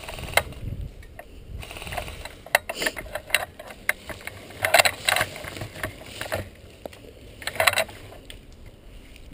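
Footsteps crunching through dry leaf litter and twigs, with rattling and clicking from the carried gun and gear. Louder crunches come about two to three seconds in, around five seconds in, and again near seven and a half seconds.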